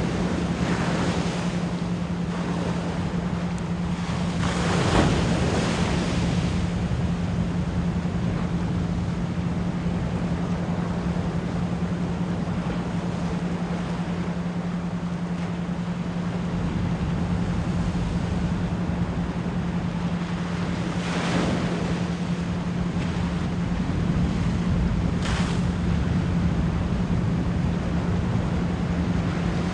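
Ocean surf washing in a steady rush, with several waves breaking more loudly, the biggest about five seconds in. Beneath it runs a steady low 174 Hz pure tone, the isochronic brainwave-entrainment layer.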